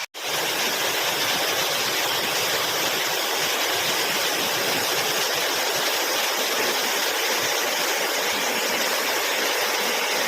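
Waterfall's falling water making a steady rush, cut off for a split second at the very start.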